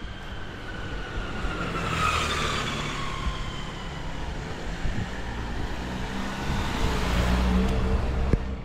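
Road traffic: a car passes with a falling tyre and engine whine about two seconds in, and a second vehicle's low rumble swells to its loudest near the end.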